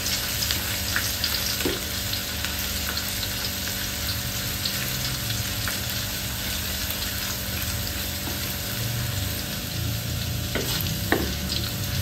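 Sliced shallots, garlic and chillies sizzling steadily in hot oil in a pan, being sautéed until the shallots wilt. A few light knocks come through, about two seconds in and twice near the end.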